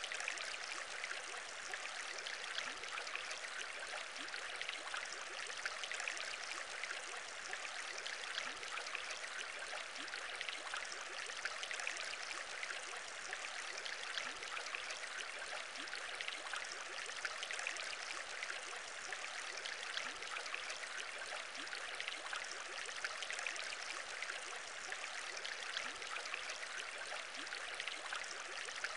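Aquarium bubbles rising and popping in a steady, unbroken stream of many tiny pops.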